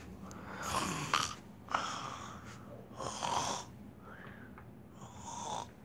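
A person snoring, four breathy snores about one to two seconds apart, with two short sharp clicks in the first two seconds.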